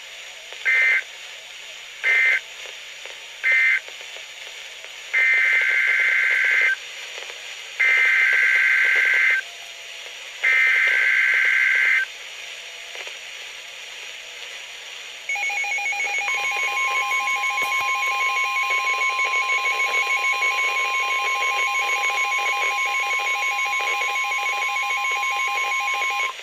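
Emergency Alert System SAME data bursts from NOAA Weather Radio: three short buzzy end-of-message bursts, then three longer header bursts announcing the next winter storm warning. After a pause of about three seconds comes the long, steady weather radio alert tone, about 11 seconds, which cuts off just before the end.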